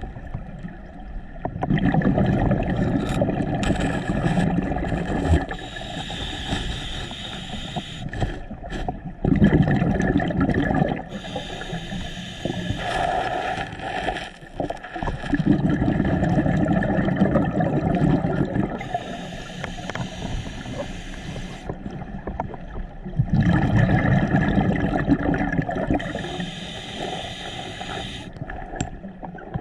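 Scuba diver breathing through a regulator underwater: long bubbling exhalations of a few seconds each, about four of them, with quieter hissing stretches between.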